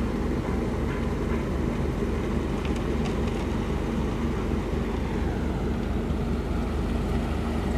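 Diesel engines of a Komatsu excavator and a concrete mixer truck running together, a steady low drone.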